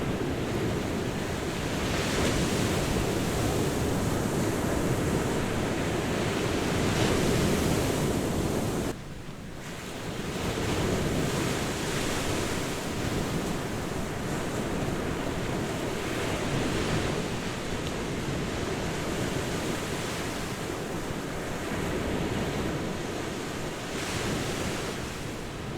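Ocean surf breaking on a beach: a continuous rushing wash that swells and eases, with a sudden short dip in level about nine seconds in.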